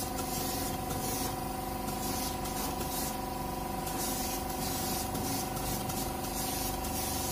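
Gravity-feed paint spray gun hissing as it sprays gold metallic paint onto a motorcycle wheel rim, the hiss swelling and easing as the trigger is worked, over a steady hum.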